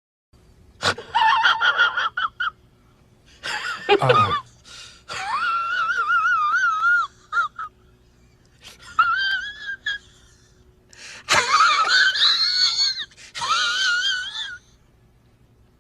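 High-pitched wheezing vocal sound effect in about six bursts, its pitch wobbling up and down, over a faint steady hum.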